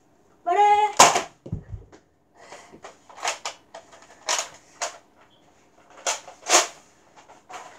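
Toy Nerf blaster being worked: a sharp snap about a second in, then a string of irregular plastic clacks and short rasps from the blaster's mechanism.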